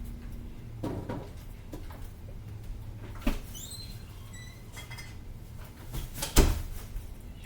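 Kitchen items being handled and set down: a few knocks and clatters, the loudest about six seconds in, with a short high squeak around three and a half seconds, over a low steady hum.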